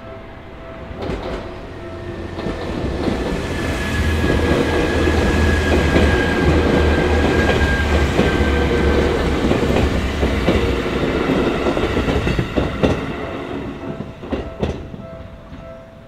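Yellow Seibu Railway commuter train passing through a level crossing. The rumble of wheels on rail builds, holds, then fades, with clickety-clack over the rail joints and a slowly falling motor whine. Several sharp clacks come near the end as the last cars go by. The crossing's warning bell rings steadily underneath.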